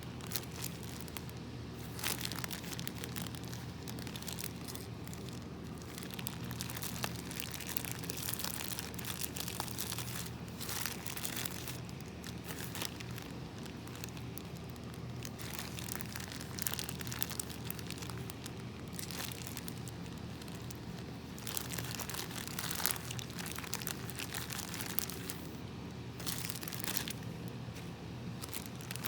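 Slime being squeezed and worked by hand, giving a continuous irregular crinkling, crackling sound, over a low steady hum.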